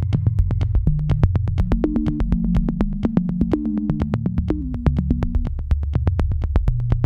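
Electronic background music: a synthesizer bass line stepping between low notes under a fast, steady clicking beat.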